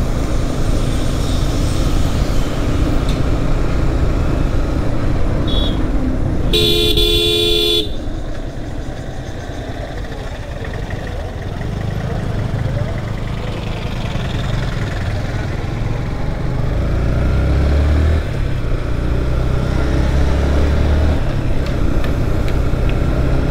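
Steady engine and road noise of a motorcycle ride, with a vehicle horn honking once for about a second roughly a third of the way in.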